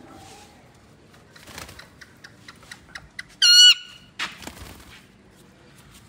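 An Indian ringneck parakeet gives one loud, short squawk about three and a half seconds in, with soft taps and rustles around it.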